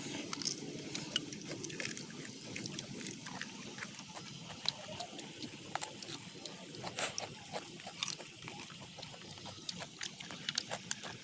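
Close-up eating noises: wet chewing and lip-smacking, with many short crisp clicks from bites of a raw green vegetable.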